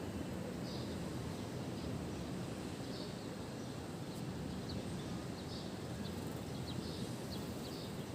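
Steady low rush of wind and sea surf, with faint short bird chirps scattered throughout.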